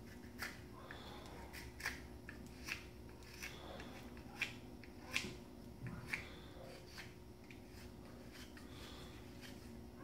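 Small carving knife shaving a wooden spoon handle: short, sharp scraping cuts at uneven intervals, roughly one a second, over a faint steady hum.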